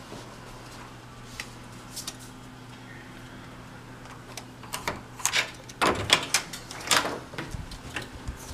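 Hotel room door being unlocked and opened: a couple of faint clicks, then about five seconds in a run of louder clicks and clacks from the keycard lock, lever handle and latch, over a steady low hum.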